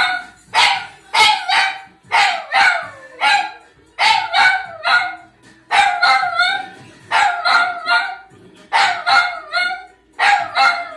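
A dog howling along to a television: short yelping howls with wavering, bending pitch, coming in clusters of two or three about every one to two seconds.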